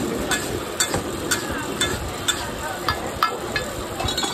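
Long-handled metal spatula stirring a huge wide pan of bubbling mutton masala gravy, scraping and clicking against the metal about twice a second over a steady sizzle.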